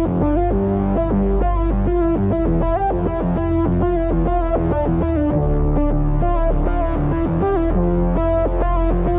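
Background music: electronic synthesizer and keyboard track with a steady beat.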